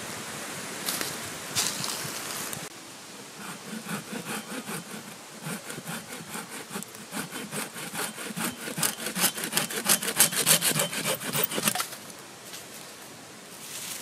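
A saw cutting through a thin wooden branch in quick back-and-forth strokes. The strokes get faster and louder and stop about twelve seconds in.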